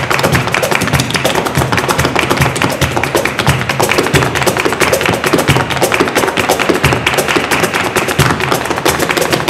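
Live flamenco: rapid heel-and-toe footwork (zapateado) striking a parquet floor, with hand-clapping (palmas) and cajón beats. The dense strikes go on throughout.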